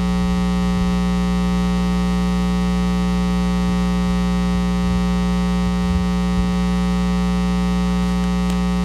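Loud steady electrical hum with many overtones from the church sound system, with a few faint low knocks about six seconds in.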